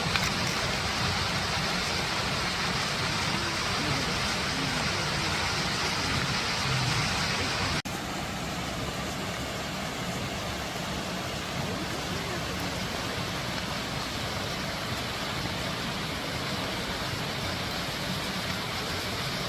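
Waterfall swollen with rainy-season water, falling with a steady, even rush. About 8 seconds in there is a brief dropout, and the rush goes on slightly quieter.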